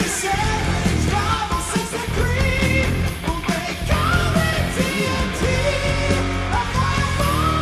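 Live heavy metal band playing loudly, a held, wavering lead line over bass and drums.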